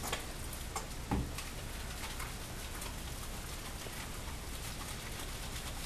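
Hands scrubbing lather through a wet dog's coat in a bathtub: soft wet squishing with scattered small clicks, and one short falling vocal sound about a second in.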